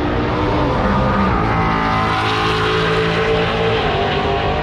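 Drag-racing car engines running hard, their pitch shifting up and down in steps.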